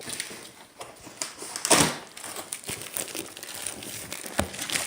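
Cardboard box and packaging of a chair delivery being handled and pulled at, crinkling and rustling unevenly, with one louder burst about two seconds in and a sharp knock near the end.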